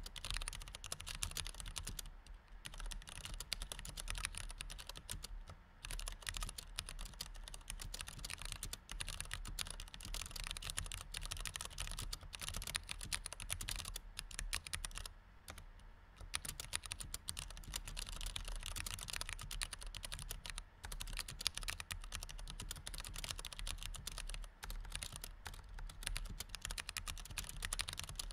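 Two-handed typing on a white computer keyboard with flat, separated keys: a fast, dense patter of key clicks, broken by short pauses about two, five and fifteen seconds in.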